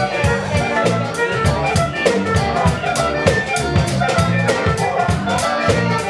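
Live funk band playing: an electric bass line under a drum-kit groove with a steady, busy hi-hat, and a wind instrument carrying the melody.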